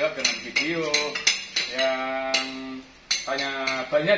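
Background music: a singing voice with held notes over a steady percussion beat.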